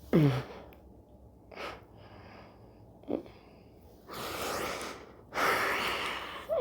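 A person breathing heavily and gasping: a short falling-pitch gasp at the start, then two long, loud breaths in and out in the second half. A faint brief click comes about three seconds in.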